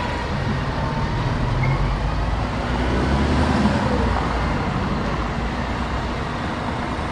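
Road traffic on a paved city street: a steady wash of tyre and engine noise, with a vehicle's low engine rumble swelling to a peak about halfway through and then easing off.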